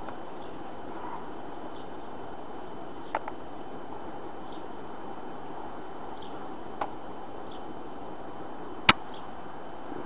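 Steady hum of honeybees around an open hive, broken by sharp knocks as the wooden frames are handled: two light ones and a much louder one near the end.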